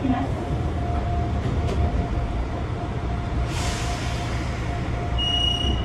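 Gakunan Railway electric train running, heard from inside the car: a steady low rumble of wheels on rail with a steady motor whine. A short hiss about three and a half seconds in, and a brief high tone near the end.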